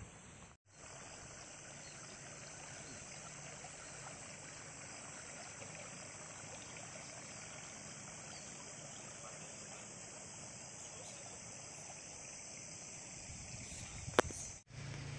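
Rural outdoor ambience: an insect chorus making a continuous high buzz over a soft rushing haze. The sound drops out briefly about half a second in and again near the end, with a single sharp tick just before the second dropout.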